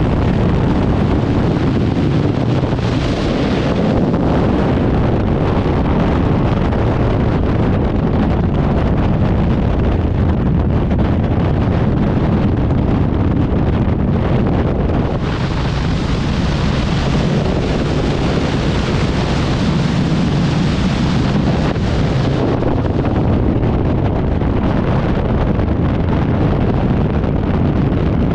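Loud, steady wind rushing over the camera microphone, the airflow of a skydive in freefall, turning hissier for a moment a few seconds in and again for several seconds about halfway through.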